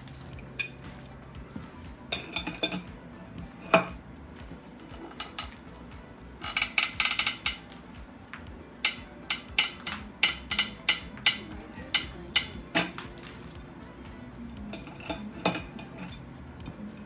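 Metal hand tools clinking and tapping against engine parts: irregular sharp metallic clicks in clusters, with a loud single clank about four seconds in.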